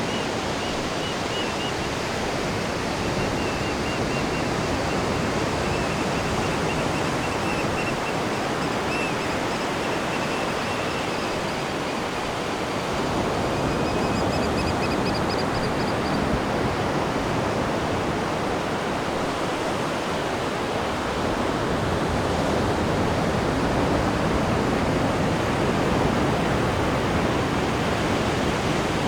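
Atlantic surf breaking and washing ashore: a steady rush of water that swells and eases slowly.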